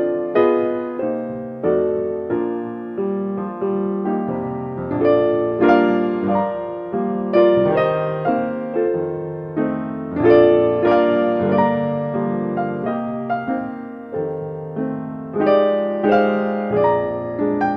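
Background music: solo piano playing melody notes over chords, each note struck and fading.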